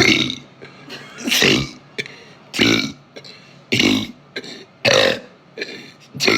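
A young woman burping deeply over and over: about six short, loud burps, one every second or so, each dropping in pitch.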